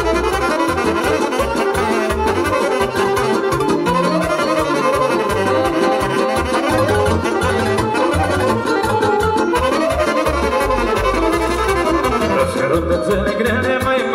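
Band playing the instrumental part of a Romanian folk song, a lead melody over a steady bass beat, with no singing.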